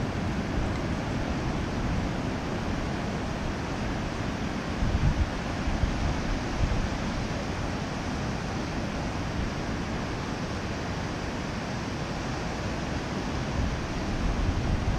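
Atlantic surf breaking and washing up the beach, a steady rushing wash, with wind buffeting the camera's microphone in low rumbling gusts about five seconds in and again near the end.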